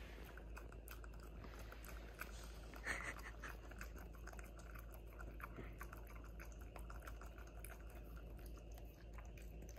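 A dog chewing, a faint steady run of quick mouth clicks and smacks, with one louder smack about three seconds in.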